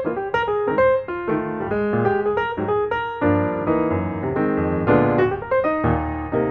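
Background piano music: a steady run of notes, often several sounding together.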